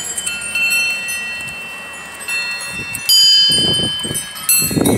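Wind chimes ringing, with several high tones struck together and left to ring on. A louder clash comes about three seconds in. Irregular low, gusty noise comes and goes over the last second and a half.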